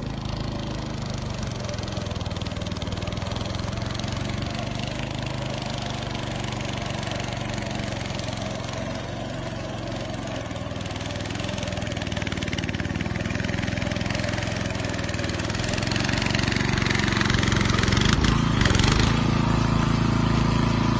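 Small engine of a racing lawnmower, built from a Dynamark riding mower, running steadily, growing louder about three-quarters of the way through.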